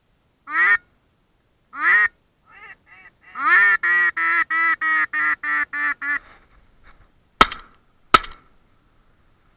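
Hen-mallard quacking: two single quacks, a few soft notes, then a fast run of about ten quacks that fade slightly. Two sharp shotgun shots follow, less than a second apart.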